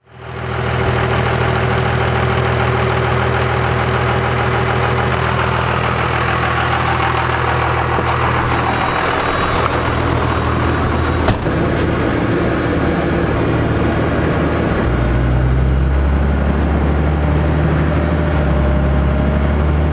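Cummins 5.9-litre inline-six turbo-diesel of a second-generation Dodge Ram running steadily, heard from inside the cab. There is a sharp click about eleven seconds in, and the low engine hum grows deeper a few seconds later.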